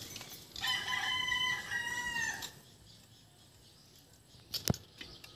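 A rooster crowing once, a call of about two seconds that eases down at the end. A sharp click follows near the end.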